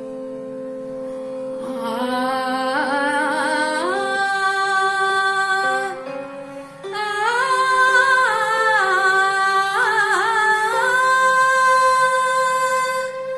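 A woman singing a slow Marathi bhavgeet melody in raag Shivaranjani, her voice gliding and wavering between held notes, over a steady instrumental drone. The voice comes in about two seconds in, pauses briefly around the middle, then carries on.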